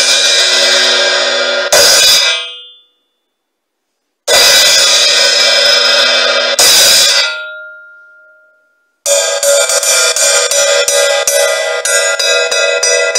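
Paiste 602 14-inch Sound Edge bottom hi-hat cymbal struck alone with a drumstick. First come single strikes, each left to ring and die away, with short pauses between them. From about nine seconds in it is played with a steady run of quick strokes.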